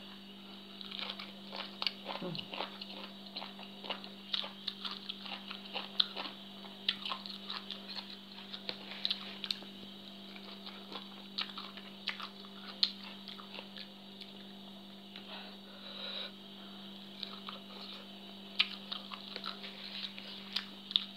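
Close-up sounds of a person eating papaya salad and raw greens by hand, with many short, irregular wet crunches and mouth clicks while chewing. A steady low hum runs underneath.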